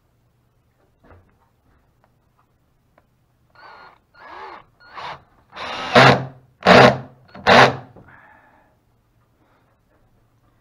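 Black & Decker cordless drill driving screws into a plywood deck piece in short trigger bursts that grow louder, the last three the loudest.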